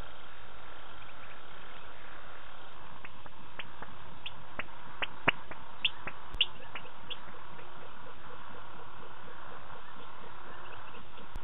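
Night-time African bush: a steady high background chorus, with about a dozen short, sharp chirps or clicks from an unseen small animal between about three and seven seconds in.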